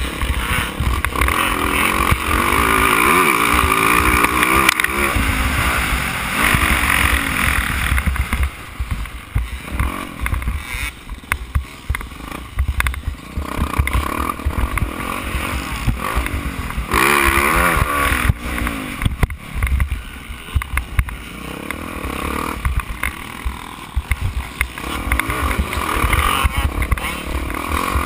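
Four-stroke Yamaha YZ450F motocross bike's single-cylinder engine, heard from on board, revving hard and backing off again and again as the rider accelerates and shuts the throttle. Wind buffets the microphone throughout.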